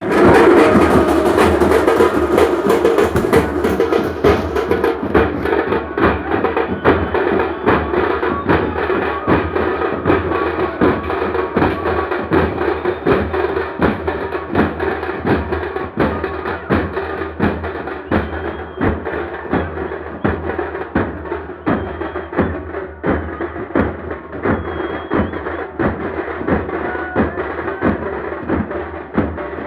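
Teenmaar drum music: a fast, steady run of drum beats played for dancing.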